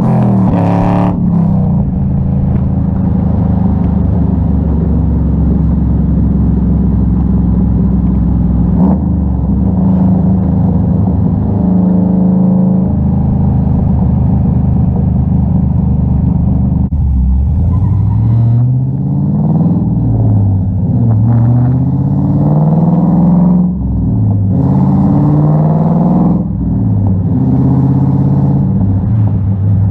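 Pontiac Trans Am's stock 5.7 L LS1 V8 running through 1 7/8 in Speed Engineering long-tube headers and a 3 in true dual X-pipe exhaust while driving. The note holds a steady cruising drone for the first half, then climbs and drops back several times in the second half as the engine is run up and let off.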